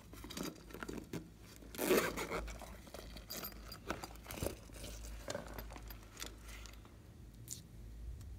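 A zipper on a silicone pop-it pouch being pulled open, a short rasp about two seconds in. It is followed by scattered clicks and rustling as the pouch and small plastic toy figures are handled.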